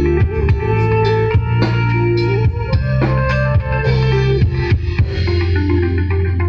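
Live band amplified through a large PA system: drum kit, electric guitars and bass playing a steady groove. The drumming stops about five seconds in while the bass and melody carry on.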